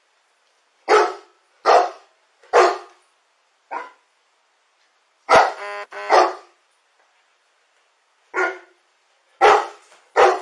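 A dog barking repeatedly, about nine loud barks at irregular intervals, with one longer, drawn-out bark about halfway through.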